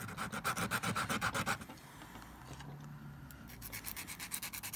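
A dentalium shell being filed with a nail file to even out its end: fast back-and-forth scraping strokes, about a second and a half of them, a short pause, then another run of strokes near the end.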